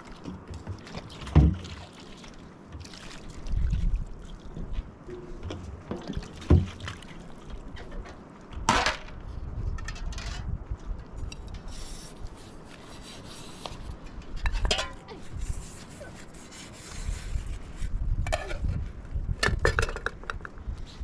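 Metal pots, pans and round trays being handled and set down on the ground, with a few sharp clinks and knocks spread out among quieter rattling.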